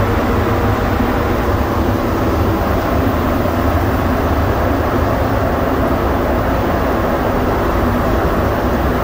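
Rubber-tyred Montreal Metro train running through a tunnel, heard from inside the car: a loud, steady rumble with a faint steady hum over it.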